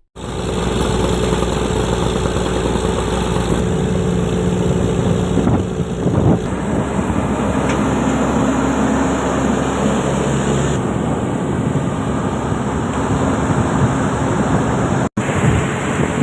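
Heavy diesel construction machinery running steadily, with a brief dropout in the sound about fifteen seconds in.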